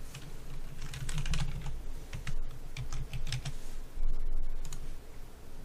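Typing on a computer keyboard: a quick run of keystrokes as a login user ID and password are entered, with a louder stretch about four seconds in.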